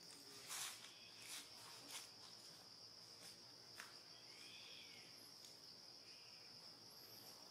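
Faint, steady high-pitched drone of insects in the forest, with a few soft clicks in the first seconds and a brief faint chirp near the middle.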